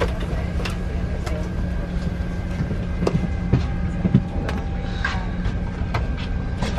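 Steady hum of a parked Airbus A350-900 cabin, with several short clicks and knocks as a seat-back entertainment screen is unfolded from the armrest on its hinged arm.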